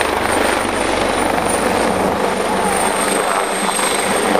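Helicopter flying a low display pass, its rotor and turbine engines making a loud, steady noise.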